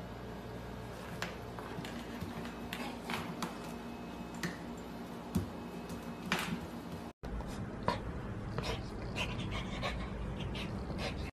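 Golden retriever puppy licking and pawing at the stainless-steel door of an open dishwasher: scattered light clicks and taps on the metal. After a brief cut, a puppy's short whimpers and panting.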